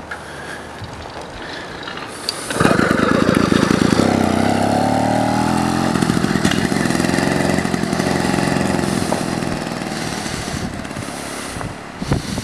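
Small two-stroke bicycle engine from a Bikeberry 80cc (66cc) kit, coming in suddenly and loudly about two and a half seconds in, its pitch climbing as the bike picks up speed, then slowly fading as the bike rides away.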